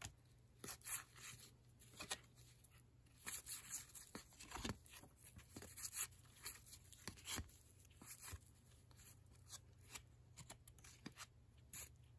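Upper Deck baseball cards being flicked one at a time from one hand to the other: a run of faint, irregular slides and snaps as each card passes over the next.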